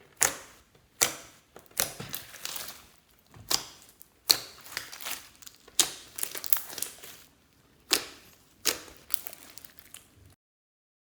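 Slime being squeezed and pressed by hand, giving sharp squelching pops and crackles about once a second. It cuts off to silence near the end.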